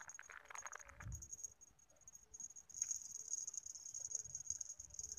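Insects chirring in a high-pitched, pulsing trill, broken at first and continuous from about halfway through. A low thump sounds about a second in.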